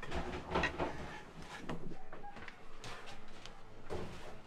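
Irregular knocks and thumps of people moving about inside a wooden catamaran hull.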